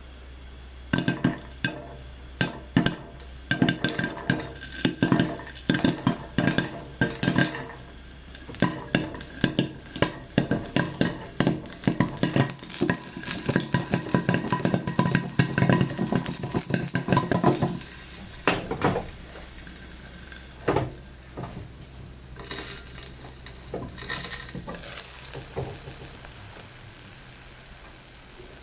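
Popcorn kernels popping in hot melted butter: sharp pops start about a second in, come thick and fast for some fifteen seconds, then thin out to a few scattered pops as the batch finishes.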